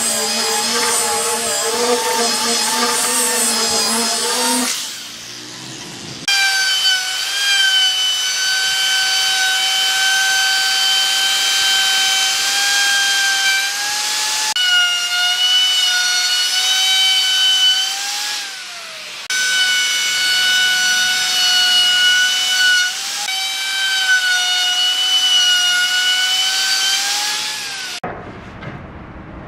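An angle grinder with a sanding disc runs against a pine board for about five seconds, its pitch wavering under load. Then an electric router runs with a steady high whine. The whine winds down once midway and starts again, then winds down near the end.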